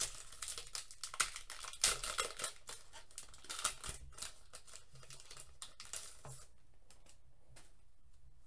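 Foil Pokémon Evolutions booster pack wrapper tearing open and crinkling as the cards are pulled out: a rapid run of crackles and rustles that thins to a few faint clicks after about six seconds.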